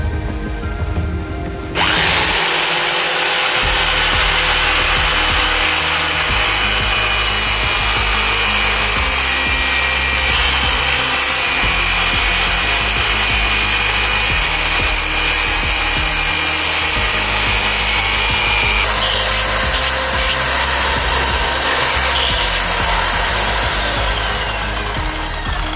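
Corded electric drill fitted with a small cutting disc, switched on about two seconds in and running at speed with a steady high whine as a dried coconut shell is pressed against the disc and cut, grinding the shell to dust. Background music plays underneath.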